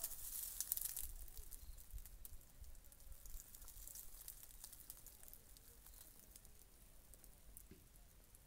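Faint crackling and rustling over a low rumble, busiest and loudest in the first second or two, then dying down.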